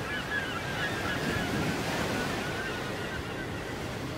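Many birds calling over one another in short, curved, repeated calls, over a steady rush of wind and surf.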